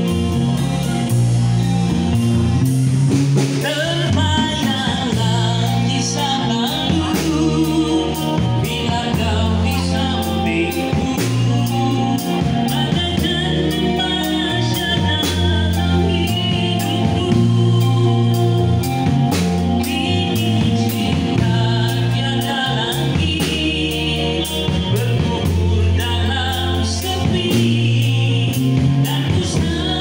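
Live band playing a song: a man singing through a microphone over electric guitar, bass guitar and a drum kit, with the cymbals keeping a steady beat.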